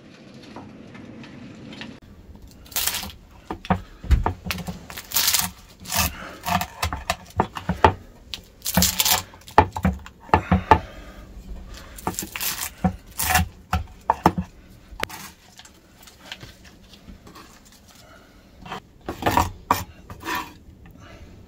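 Dishes, plates and cutlery clattering and clinking while a breakfast table is laid: a run of irregular knocks and clinks, busiest in the first half, with a last short cluster near the end.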